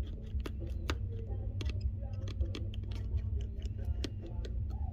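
Irregular small clicks and taps of hand tools working on an opened iPhone 7 as its screen is taken off, over a steady low hum.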